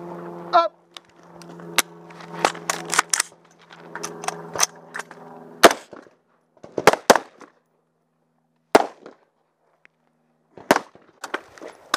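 Carbine shots from a line of several shooters, fired singly and unevenly spaced, some close together, each fired after a tap-rack clearance of a malfunction. A low steady hum sits under the first half.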